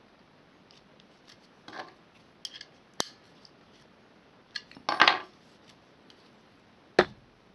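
Irwin Vise-Grip locking pliers clamped on a metal bar being handled, with a few sharp metal clicks and clinks. The loudest is a short clatter about five seconds in, and a single sharp click comes near the end.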